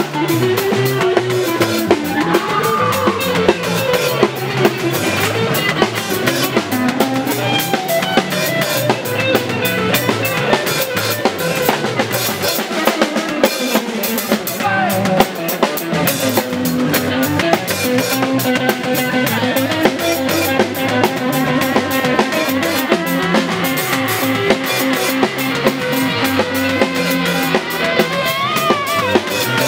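Live band jamming on drum kit and electric guitars. The drums keep a steady beat with snare and cymbal hits while a lead line slides up and down in pitch. The low end thins out for a few seconds near the middle.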